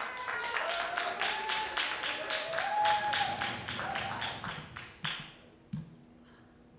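Applause from a small audience, the claps distinct, with a voice cheering over it, dying away about five seconds in. A couple of light knocks follow near the end.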